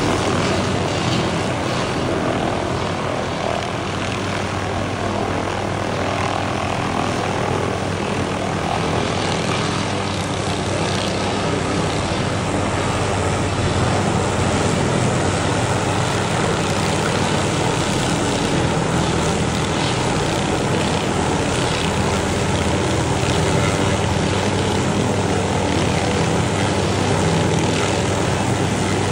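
Helicopter running steadily overhead, its rotor and engine making a continuous loud drone with no change in pitch.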